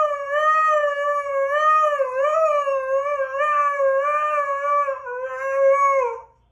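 Husky howling: one long, drawn-out howl that wavers slightly and drops in pitch as it ends, about six seconds in.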